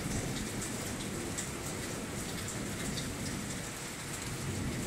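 Steady rain from a thunderstorm, with scattered close drop ticks over a low rumble.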